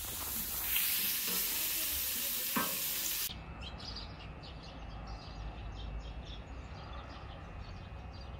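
Meat sizzling on a charcoal grill, cutting off about three seconds in. A quieter outdoor stretch follows, with faint bird chirps.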